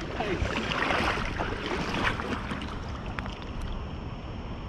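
Water splashing, strongest between about half a second and two seconds in, over a steady low rumble of wind on the microphone.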